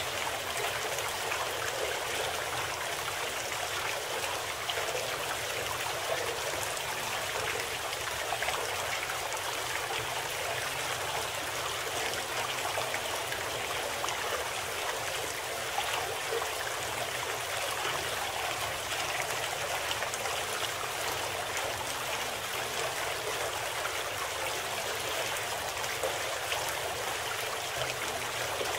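Steady running-water sound, the masking background of a subliminal audio program.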